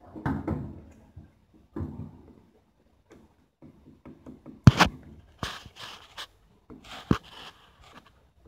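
Handling noises: rustling and scraping with a few sharp clicks, the loudest about halfway through and another near the end, as a hand works on engine parts.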